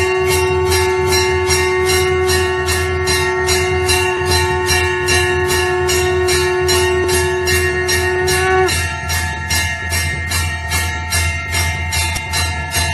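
A conch shell (shankh) blown in one long, steady note that stops about nine seconds in. Behind it, a temple bell is rung rapidly and evenly, about three strikes a second.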